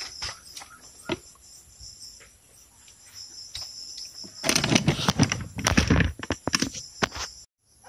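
Leafy tree branches rustling and cracking as a long-reach pole cutter works in them: a few light clicks early on, then a loud flurry of rustling and snapping about halfway through. Insects trill steadily throughout, and all of it cuts off suddenly near the end.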